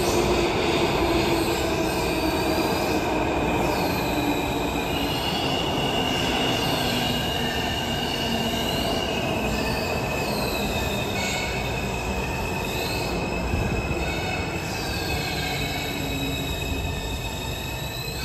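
R211A subway train running along the platform, its wheels squealing in repeated high rising-and-falling sweeps over a steady high whine and a rolling rumble. A low hum slowly drops in pitch.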